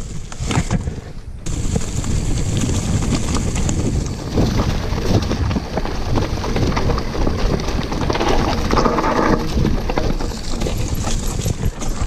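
Mountain bike riding down a rocky dirt trail: tyres crunching over stones and dry leaves, with the bike rattling over the bumps and wind buffeting the microphone.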